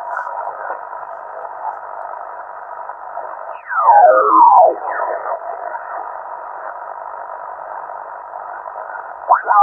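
Amateur radio transceiver's SSB receive audio: a steady band-noise hiss, with a loud whistling signal about four seconds in that slides downward in pitch as it passes through, and a brief tone near the end.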